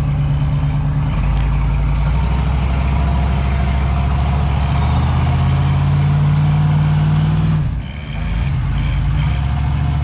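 Pickup truck and Jeep engines revving hard under load as they strain to drag a heavy fallen tree on tow straps. The engine note climbs gradually, drops off abruptly about three-quarters of the way through, then picks up again.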